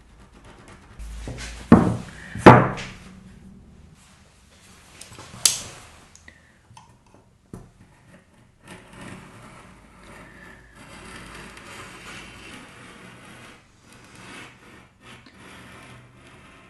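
Objects being handled: three sharp knocks in the first six seconds, a few light ticks, then several seconds of soft rustling.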